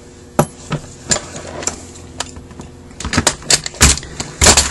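Metal parts of a disassembled Rochester Quadrajet carburetor clicking and knocking as they are handled while the throttle body is worked loose from the main body. A few scattered clicks are followed, about three seconds in, by a quicker run of louder knocks.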